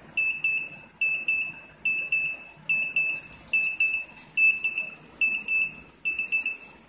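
Homemade microcontroller alarm clock's onboard buzzer sounding its alarm. It gives a high-pitched beep in groups of two or three quick beeps, and the groups repeat a little more than once a second.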